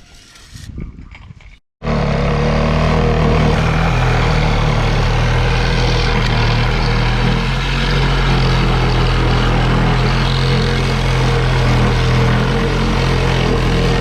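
A motor running steadily and loudly, starting abruptly about two seconds in.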